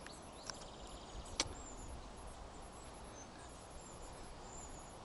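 Faint high chirps of small birds in a tree, with one sharp click about a second and a half in.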